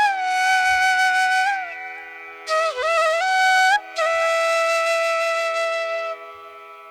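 Background music: a flute-like wind instrument plays a slow melody of long held notes that bend and slide between pitches over a steady drone. There are three phrases, the last a long held note that fades out near the end.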